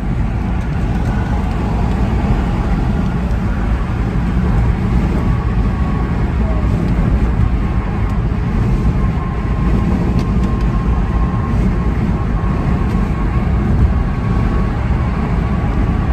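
Steady road and engine noise from inside a moving car, mostly a low rumble with a faint steady whine over it.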